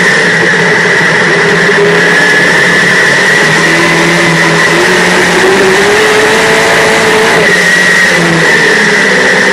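Dirt-track modified race car's engine running hard, heard from inside the cockpit. Its pitch climbs from about four seconds in, then drops back shortly after seven seconds.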